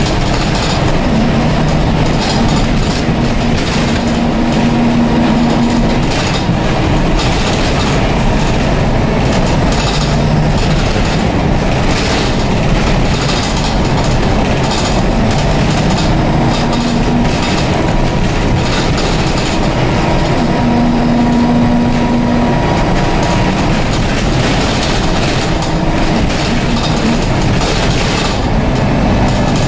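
Dennis Dart single-deck bus heard from inside the saloon while driving: its Cummins diesel engine and Allison automatic gearbox running under steady road noise, the engine note swelling for a few seconds at a time, with occasional knocks and rattles from the body.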